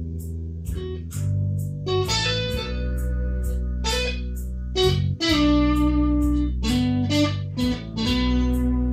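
Ibanez '81 Strat-style electric guitar through a handmade overdrive pedal, a KFX Shaman 60 W amplifier and a 2x12 cabinet with Celestion Vintage 30 speakers, improvising blues lead lines of sustained single notes. It plays over a backing track with a bass line and a steady beat of about three ticks a second.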